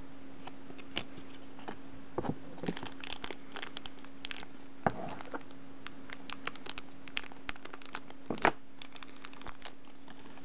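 Clear plastic blind-pack wrapper crinkling and being torn open by hand, a run of irregular crackles and snaps with a sharper one near the end. A steady low hum sits underneath.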